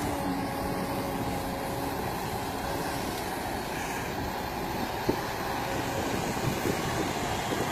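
Kobelco hydraulic excavator's diesel engine running steadily as the machine digs sand and swings to load a dump truck, with a faint whine that fades after about two seconds. A single short knock comes about five seconds in.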